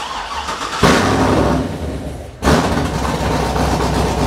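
A 6.2-litre V8 with a newly installed BTR camshaft making its first start after the cam swap. The starter cranks briefly, the engine fires about a second in, dips for a moment past two seconds, then picks up and runs steadily with a deep rumble.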